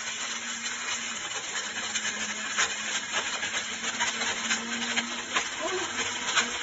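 Silver Crest countertop blender running at full speed, a steady whir with many sharp clicks as hard pieces strike the jar while being crushed.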